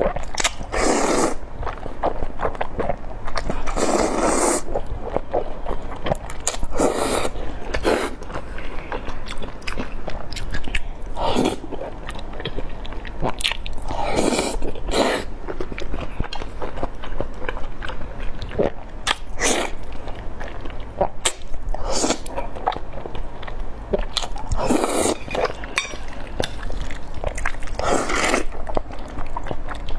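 Close-miked eating: a loud crunchy bite every few seconds, with wet chewing and small clicks of the mouth between them.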